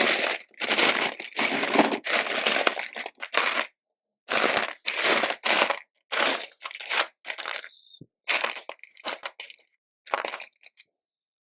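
A hand rummaging through a pile of loose LEGO bricks, the plastic pieces rattling and clattering together in a series of short spells that stop shortly before the end.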